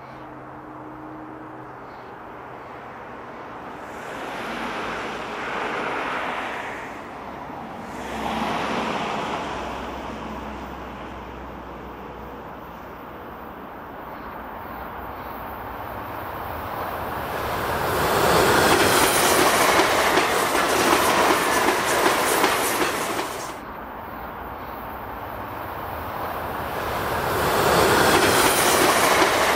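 A train rolling past on the track, its wheels clacking over the rail joints. The sound builds from a low rumble and is loudest in two stretches, a little past halfway and again near the end, with a sudden drop between them.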